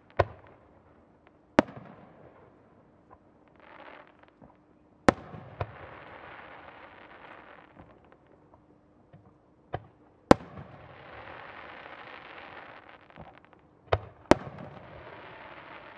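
Aerial firework shells bursting with sharp bangs, about seven in all, some in close pairs. After several of the bursts comes an even crackling hiss lasting a few seconds.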